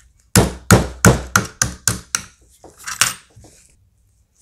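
Rubber-headed mallet tapping a takedown pin out of a CYMA Sport AR-47 airsoft rifle's receiver: about nine sharp knocks, roughly three a second, the last two lighter.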